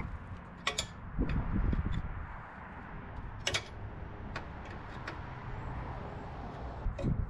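A few light metal clicks and clinks from axle hardware being handled by hand at the end of a car's rear axle, over a low steady rumble.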